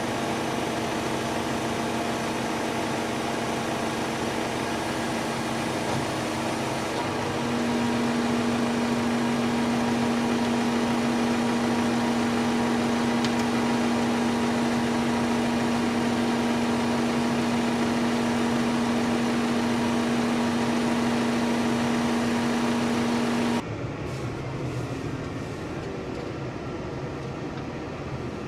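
Tractor engine and driveline running under steady load at constant speed: an even mechanical drone with a strong steady hum. The hum changes and grows louder about a quarter of the way in, then drops away suddenly near the end.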